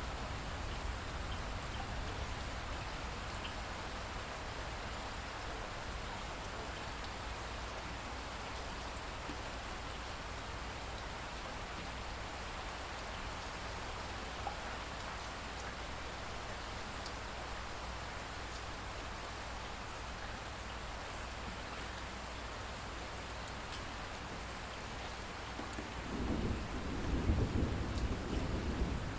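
Steady rainfall hiss, joined near the end by a low thunder rumble that swells up.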